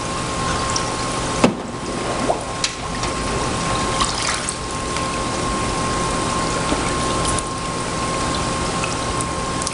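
Water sloshing and churning in a hydrographic dip tank, with a pump running steadily, while a freshly dipped golf cart hood rinses in it after the film transfer. A sharp knock comes about one and a half seconds in, and a thin steady whine runs underneath.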